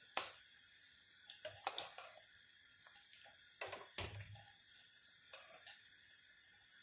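A ladle stirring soup in a steel pot, knocking lightly against the pot several times at irregular intervals.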